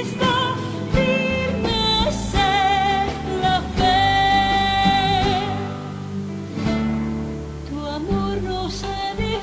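Background music: a song with a singer holding long notes over instrumental backing.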